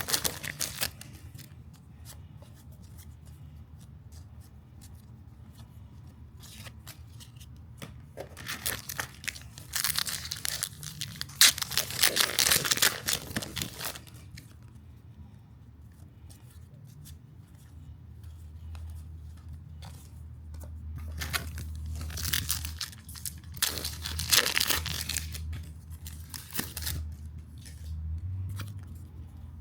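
Foil trading-card packs being torn open and crinkled, with cards rustling as they are handled. The tearing and crinkling come in two longer bouts, one about a third of the way in and one past two-thirds, with small clicks and rustles between.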